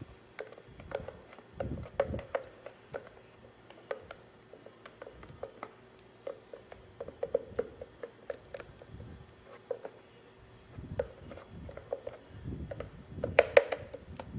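Irregular taps, clicks and knocks of kitchen utensils and containers being handled during food prep, with a louder cluster of knocks near the end.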